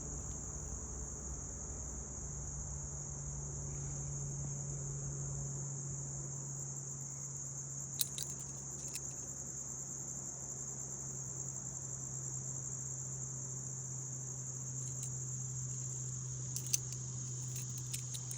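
Crickets trilling steadily at a high pitch over a low steady hum, with a few faint clicks about eight and nine seconds in and again near the end.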